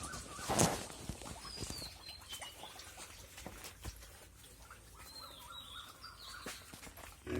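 Farmyard animal sounds: a loud rustling knock about half a second in, scattered clicks and shuffling, and two high chirping calls that glide downward, one about two seconds in and one near six seconds.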